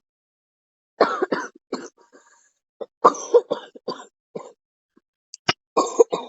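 A person coughing in three bouts of short, harsh coughs: one about a second in, one about three seconds in, and one near the end. The coughing is faked for a prank.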